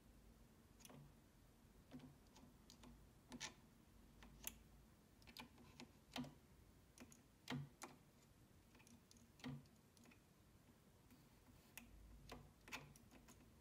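Near silence broken by faint, irregular light clicks as a metal probe tip touches the filter-capacitor terminals in a tube guitar amplifier's chassis, draining the caps.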